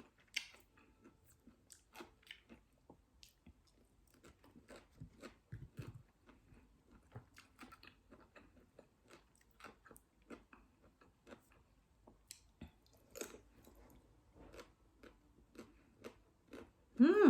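Close-up chewing of crunchy green mango: many small crunches and wet mouth clicks, scattered and irregular. Near the end comes a short hummed vocal sound from the eater, bending in pitch, louder than the chewing.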